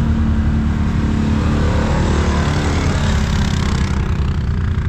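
ATV engine running steadily while riding, with a rushing noise that swells through the middle and eases off near the end.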